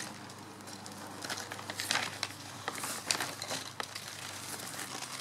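Plastic sack of white peat crinkling and rustling as a hand digs in and scoops peat out, in irregular rustles and crackles.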